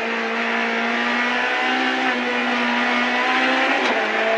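Rally car engine heard from inside the cockpit, held at high revs under load. The engine note steps up slightly about one and a half seconds in and dips briefly near the end, over a steady hiss of road noise.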